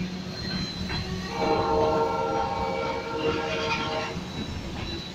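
Loaded hopper cars of a freight train rolling past close by, a steady rumble of wheels on rail, while a train horn sounds one long blast of about three seconds, starting about a second and a half in.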